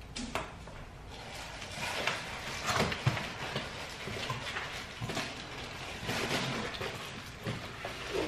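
Cardboard box being opened by hand: its flaps and paper packing rustle and scrape in irregular bursts as a stainless-steel waste bin is slid out of it.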